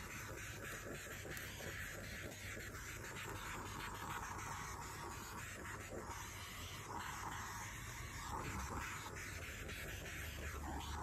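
Handheld butane torch flame hissing steadily, with a faint crackle, as it is swept over wet epoxy resin to pop surface bubbles.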